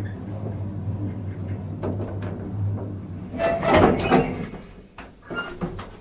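Elevator running with a steady low hum, then about three and a half seconds in a loud rattling clatter of its sliding doors, with a shorter clatter a second and a half later. The hum dies away after the first clatter.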